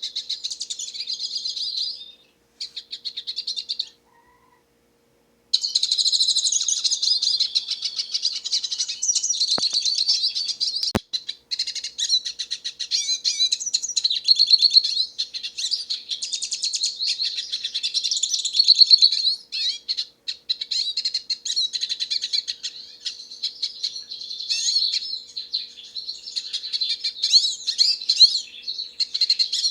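Hooded siskin singing a long, rapid twittering warble of high chirps and trills. The song breaks off briefly twice in the first few seconds, then runs on almost without pause.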